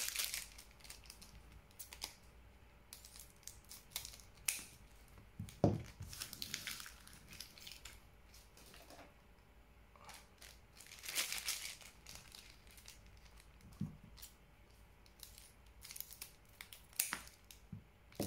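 Foil trading-card booster packs crinkling as they are handled and cut open with scissors: scattered short snips and rustles, with a few longer crinkles.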